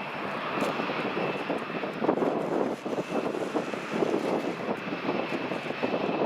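Jet airliner engine noise with a faint steady high whine, overlaid by strong gusty wind buffeting the microphone.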